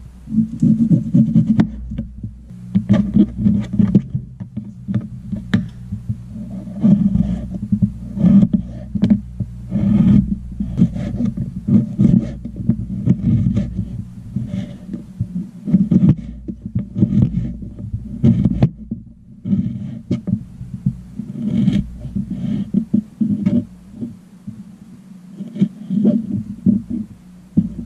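Kitchen knife chopping salt pork into cubes on a plastic cutting board: an irregular run of knocks, each with a dull thud through the countertop.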